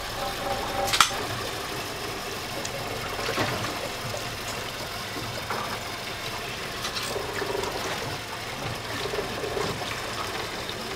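Sea water sloshing against a small boat's hull in a steady wash, with one sharp knock about a second in.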